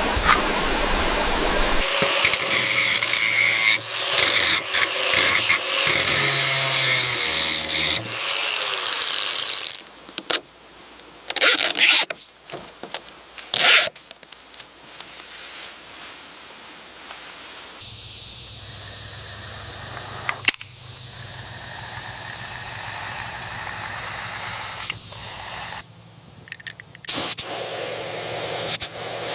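A sequence of scraping, rubbing and tool noises that changes abruptly every few seconds, with a few short loud bursts and a steadier hum later on.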